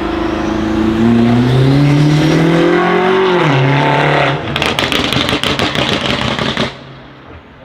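BMW M5 F90 Competition's twin-turbo V8 on a straight-pipe exhaust, accelerating hard with a rising engine note whose pitch drops sharply about three seconds in. It then runs with a rapid, irregular string of exhaust crackles and pops for about two seconds. The sound drops away quickly near the end.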